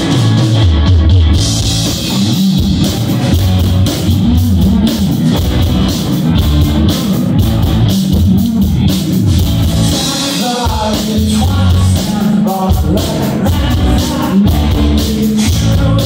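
Live rock band playing loud, with electric guitars, electric bass and a drum kit, heard from within the audience.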